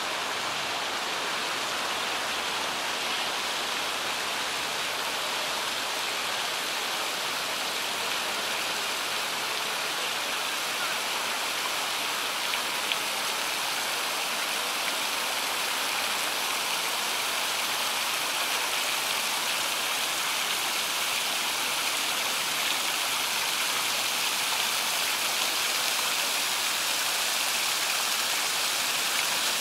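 Water-wall fountain: water sheeting down a wall into a shallow pool, with rows of small jets splashing, making a steady rushing splash that grows slightly louder towards the end.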